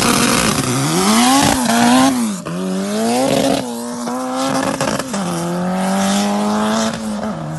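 Turbocharged hatchback race car engine revving hard as the car spins its tyres and pulls away: the revs swing sharply up and down several times in the first few seconds, then hold high and climb, with two sudden drops in the second half. A tyre-spin hiss runs under it, strongest at the start.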